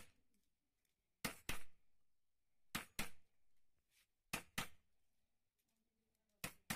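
Hammer striking a chisel to cut a switch opening in an electrical board sheet laid on a wooden block. The blows come as sharp knocks in pairs, four pairs about a second and a half apart.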